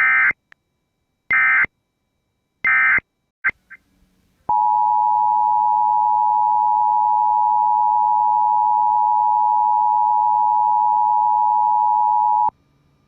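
Three short screeching Emergency Alert System (SAME) digital data bursts about a second and a half apart. A few seconds later comes a steady EAS attention tone just under 1 kHz, held for about eight seconds and then cut off, which signals a new alert.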